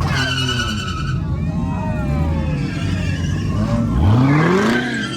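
Car engine revving hard, its pitch climbing sharply about four seconds in, with a high tyre squeal in the first second.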